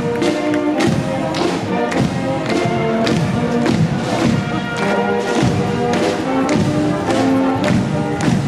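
Brass band playing a march, with a bass drum thumping on the beat about twice a second under sustained brass chords.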